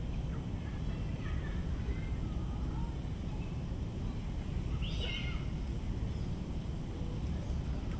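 Tropical garden ambience: scattered faint bird chirps over a steady low background rumble, with one louder, short bird call about five seconds in.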